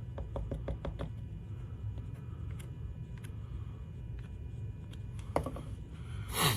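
Light clicks and knocks from the stand's parts being handled during gluing: a quick cluster in the first second, scattered small taps, a sharper knock about five seconds in and a short rustle near the end.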